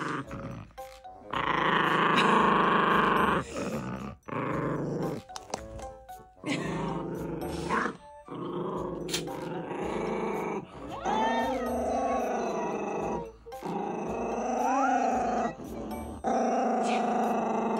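Maltipoo (toy poodle–Maltese mix) growling in a series of long, rough growls with short breaks between them, with background music. The dog is guarding an object held in its mouth against a hand reaching for it.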